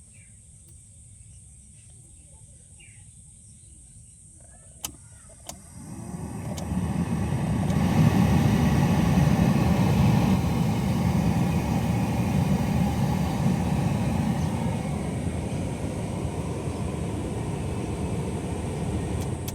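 Car AC blower motor switched on with a click or two, then spinning up about six seconds in to a steady rush of fan noise that stays loud to the end.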